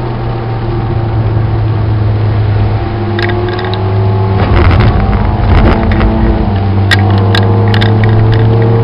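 Citroën Saxo VTS's 1.6-litre 16-valve four-cylinder engine at speed, heard from inside the cabin, held at high revs. It breaks up briefly about halfway, as if the throttle is lifted for a corner, then pulls steadily again with the revs slowly rising. A few sharp ticks near the end.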